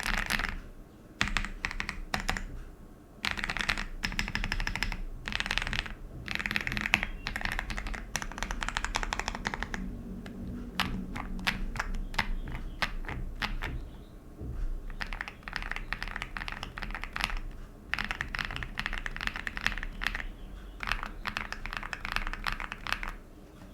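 KBDfans Tiger 80 Lite custom mechanical keyboard, modded for a creamy sound, being typed on. The keystrokes come in quick runs with short pauses between them, and there are slower, separate key presses around the middle.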